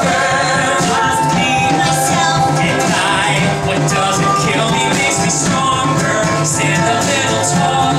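Live band music: ukulele strummed, flute and bowed cello playing, with drums, and voices singing along in a pop medley.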